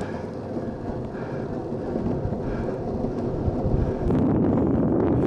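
Skateboard wheels rolling fast over rough asphalt, a steady gritty rumble mixed with wind buffeting the microphone. About four seconds in it jumps abruptly louder and deeper.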